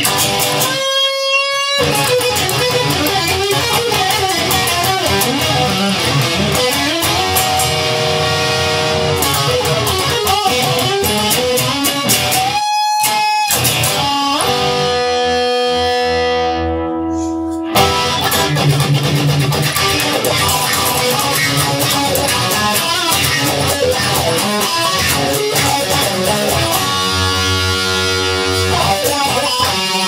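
Guitar music without singing, an instrumental passage with several long held notes.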